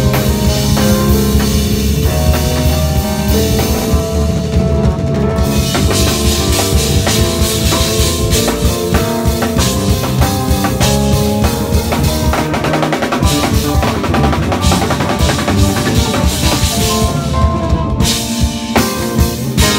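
A live band playing, led by a busy drum kit with cymbals, snare and kick, over electric bass, heard from within the audience at a club.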